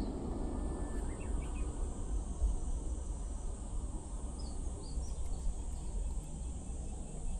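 Riverside summer ambience: a steady high insect drone with a few short bird chirps, twice, over a constant low rumble.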